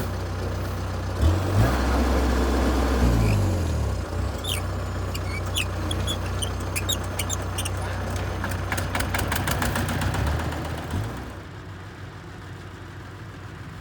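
Single-cylinder diesel engine of a Kubota RT140 two-wheel tractor running under load, revved up about a second in and eased back a couple of seconds later, revving briefly again before its sound drops away near the end. Scattered sharp clicks and short high chirps sound over it in the middle.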